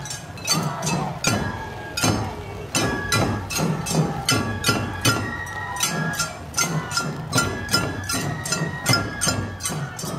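Festival procession percussion: quick, steady clanging metal strikes, about four a second, with ringing after each, over a low drumbeat.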